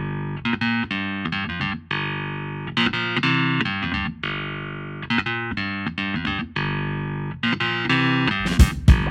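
Background music: a guitar picking out sustained, ringing notes, with drums coming in near the end.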